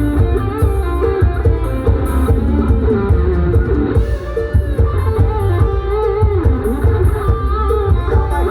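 Band music: electric guitar playing a plucked melodic line over bass and a steady beat.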